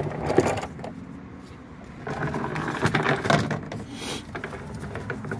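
Irregular handling noise of knocks and scraping, with one sharp knock about half a second in.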